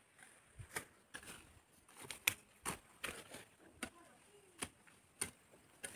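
Faint rustling of leafy plants with irregular sharp snaps, about one or two a second, as green chillies are picked by hand.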